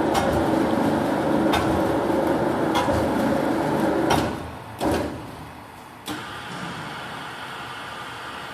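Electromechanical three-roll plate bending machine running with a steady motor-and-gear drone and a few sharp knocks. It stops about four seconds in, followed by two clunks and a quieter steady hum.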